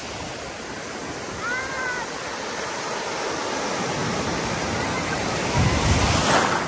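Ocean surf washing around in the shallows, swelling into a louder wave breaking about five and a half seconds in.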